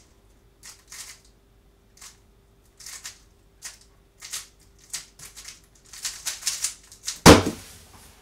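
A Moyu Weilong WR M v9 speedcube turned rapidly by hand, its layers clicking in quick irregular flurries that come thicker shortly before the end. About seven seconds in comes one loud knock as the solve ends: the cube is set down and the hands hit the timer pads.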